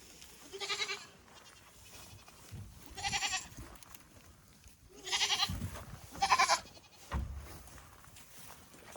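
Nigerian Dwarf goats bleating four times, each call quavering, the goats calling for hay. A few dull low thumps come between the later calls.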